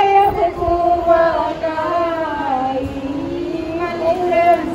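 A single high-pitched voice singing a slow melody in long held notes that glide up and down.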